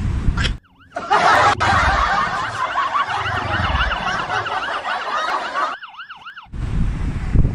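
Emergency-vehicle siren in a fast yelp, its pitch rising and falling about three times a second over loud noise. A low vehicle rumble cuts off abruptly just before the siren comes in. Near the end the noise drops away, leaving the siren alone briefly, before a low rumble returns.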